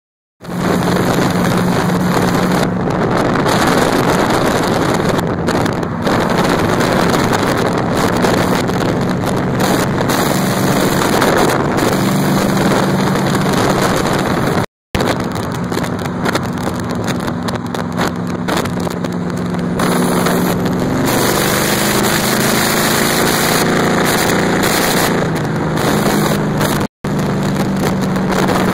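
Rat rod truck engines droning steadily at highway cruising speed, heard from inside a moving cab with heavy wind and road noise. The sound cuts out for a moment twice.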